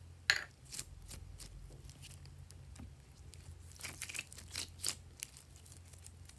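Red glitter slime squeezed and stretched by hand, giving scattered sticky clicks and crackles: a sharp one just after the start and a quick cluster about four to five seconds in.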